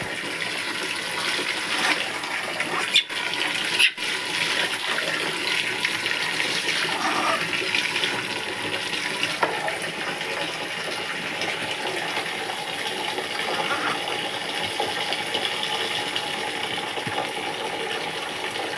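Steady rush of running water, like a tap or hose left running, with two sharp knocks about a second apart a few seconds in.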